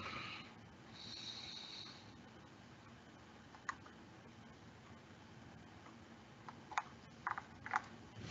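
Faint room tone with a few soft computer clicks: one about four seconds in and a small cluster near the end, as the computer is worked at a desk.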